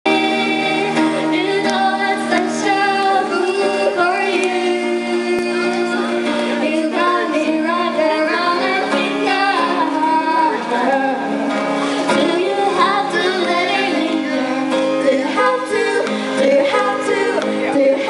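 Live female singing accompanied by an acoustic guitar.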